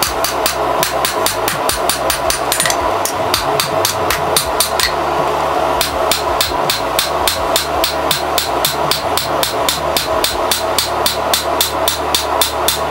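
Hand hammer striking red-hot 1¼-inch steel rebar on an anvil, drawing out a blade. The blows come steadily at about three to four a second, with a short pause about five seconds in, over a steady hum.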